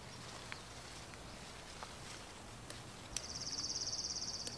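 An insect trilling: a rapid, evenly pulsed, high-pitched buzz that starts about three seconds in and lasts just over a second. A few faint clicks come before it.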